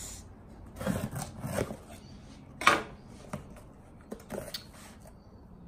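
Knife cutting the packing tape on a cardboard box and the cardboard flaps being pulled open: a series of short scrapes and rubs, with one sharp rasp about halfway through the loudest.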